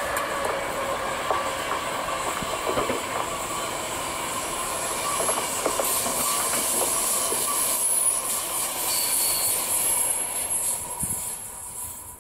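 Passenger coaches of an electric-hauled train rolling past at speed: wheels clattering over the rail joints, with thin steady squealing tones from the wheels. The sound fades away near the end.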